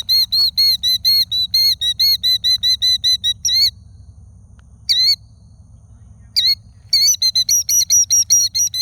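Killdeer giving its shrill alarm call: a rapid run of high, rising-and-falling notes, about five or six a second, breaking into a few single calls midway before the fast series starts again. The bird is agitated, defending its nest against people close by.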